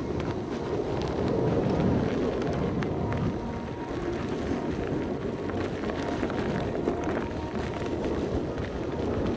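Electric unicycle riding over dirt singletrack: steady tyre rumble and wind on the microphone, with scattered small ticks and clicks and a faint steady whine.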